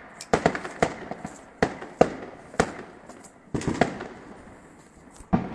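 Fireworks going off in a string of sharp bangs at irregular intervals, some in quick pairs and clusters, each followed by a short echoing tail.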